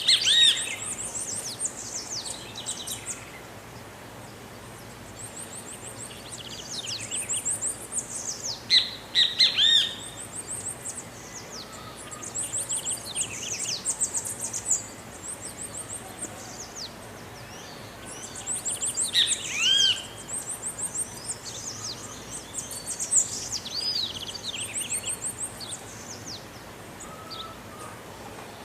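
A songbird singing in repeated phrases about every five seconds. Each phrase is a rapid run of very high notes followed by a few lower, arching notes.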